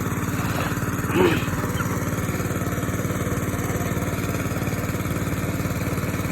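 A small engine running steadily at an even speed. About a second in, a brief louder sound rises over it.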